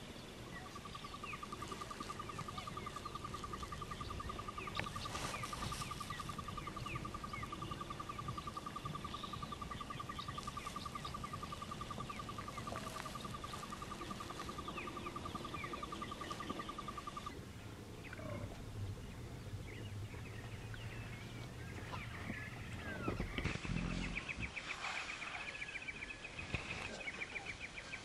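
Outdoor bush ambience: a long, evenly pulsing trill runs through the first two-thirds, with scattered short bird chirps over it. After a cut, a higher pulsing trill takes over near the end.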